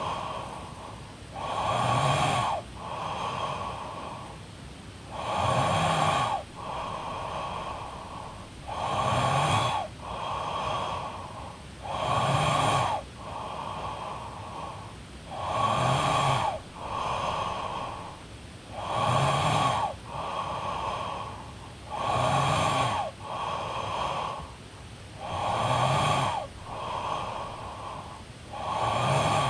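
A woman snoring in her sleep with a steady breathing rhythm, about one breath every three and a half seconds. Each breath is a loud snore followed by a softer, longer breath.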